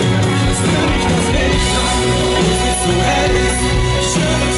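Pop-rock band playing live through a concert PA, with electric guitars and drums, heard loud and steady from within the crowd.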